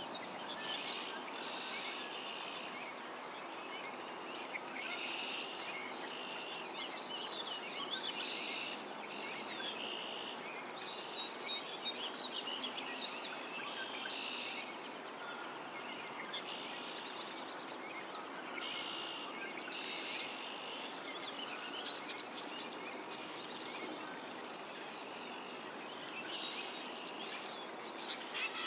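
A spring swamp chorus of several songbirds singing over one another, short phrases following each other without a break over steady background noise. Near the end a nearer bird's calls come in louder.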